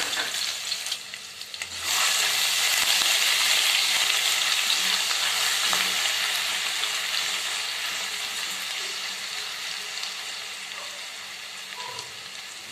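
Ginger-garlic paste sizzling in hot oil in a kadhai, stirred with a spatula. The sizzle jumps louder about two seconds in, then slowly dies down.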